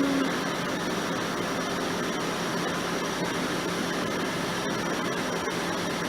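Tractor engine running steadily, a constant hum and noise.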